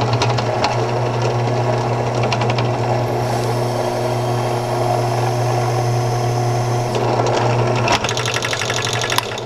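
Benchtop drill press motor running steadily, spinning a Reloader's Network roll crimper. From about three to seven seconds in, the crimper is pressed down on the shotshell's mouth, adding a rubbing hiss as it rolls the crimp over the overshot card. A sharp click follows about eight seconds in.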